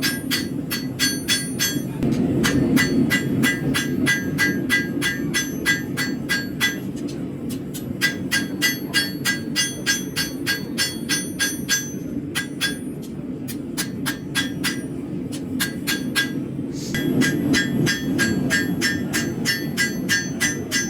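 Hand hammer striking a high-carbon steel knife blade on an anvil in steady, ringing blows, about three a second, broken by a few short pauses. A steady low hum runs underneath.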